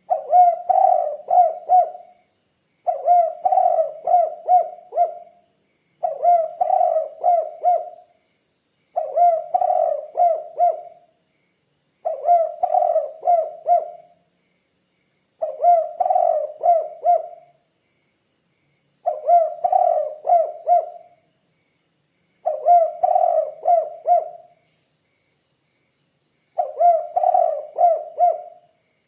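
Spotted dove (tekukur) cooing over and over: nine phrases of four or five low coos each, repeated every three to four seconds with short pauses between.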